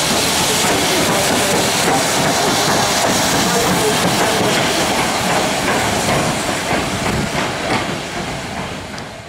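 Southern Railway King Arthur class steam locomotive No. 777 passing close by at low speed, steam hissing and wheels running over the rails. The sound fades as it draws away over the last few seconds.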